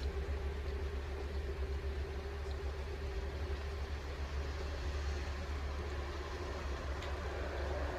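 Steady rain, a continuous even hiss over a constant low rumble, with a couple of faint drip ticks.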